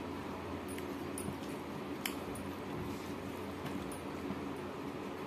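Quiet eating sounds: fingers mixing and gathering rice with sinki broth on a steel plate, with a few faint clicks, the clearest about two seconds in, over a steady low room hum.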